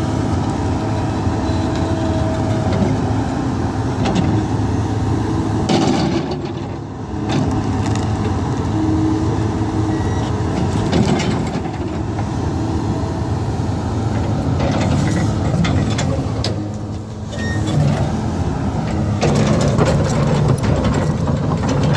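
Kobelco SK260 excavator's diesel engine working hard under load as it digs out a tree stump, easing off briefly twice, with occasional knocks and scrapes from the bucket and stump.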